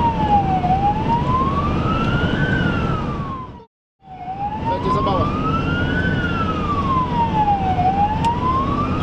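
Ambulance siren in slow wail mode, heard from inside the cab: a tone sweeping up and down about every two seconds, over engine and tyre noise at motorway speed. The sound breaks off completely for a moment about four seconds in.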